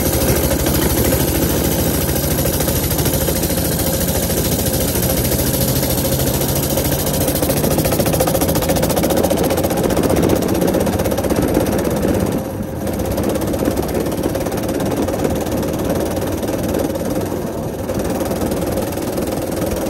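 Small engine running steadily while it warms up from cold after sitting a long time, its sound dipping briefly twice in the second half.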